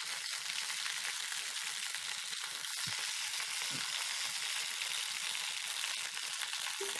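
Nopales (cactus paddles) sizzling on a hot ridged grill pan as more olive oil is poured onto it: a steady crackling hiss as the paddles' slimy moisture cooks off and evaporates.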